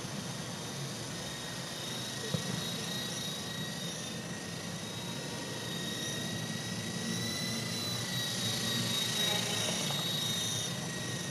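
Double Horse 9104 radio-controlled helicopter in flight: its small electric motors give a steady high whine in two tones that waver slightly, over the hiss of the spinning rotors. The sound grows a little louder about eight seconds in.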